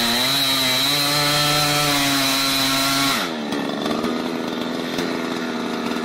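Chainsaw at full throttle cutting into a large tree trunk, the engine note sagging briefly under load near the start and then holding steady. A little past three seconds in the revs drop away and the saw runs on quieter and rougher.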